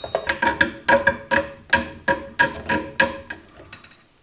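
A quick run of sharp metallic clicks and clinks, about three a second, each with a short ring, stopping a little after three seconds: tie wraps being fastened around the power cable against the Braumeister's stainless steel body.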